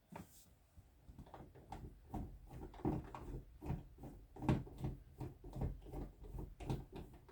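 A hand screwdriver working at the screws of an interior doorknob. The metal knob hardware gives a run of irregular knocks and rattles against the door, starting about a second in.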